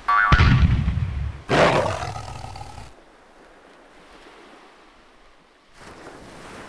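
Tiger roaring, two loud roars back to back over about the first three seconds, then it falls quiet.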